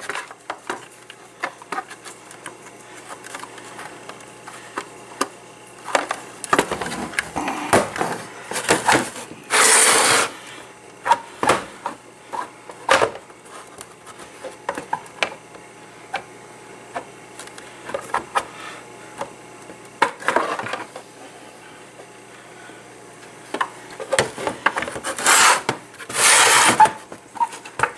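Hard plastic shell of an iPulse jukebox speaker being handled and pried apart: scattered clicks, knocks and rubbing of plastic parts, with a few longer scrapes about ten seconds in and again near the end.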